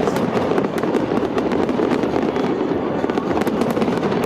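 Fireworks display: a dense, unbroken crackle of many rapid small bursts and pops.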